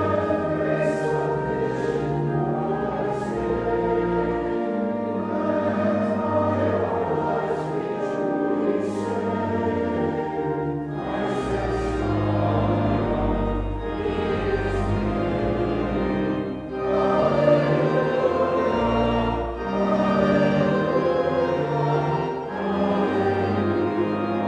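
A group of voices singing a hymn in held, slow phrases, over low sustained bass notes.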